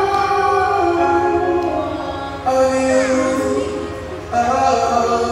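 Slow music with long held notes, a new phrase coming in louder about two and a half seconds in and again near the end.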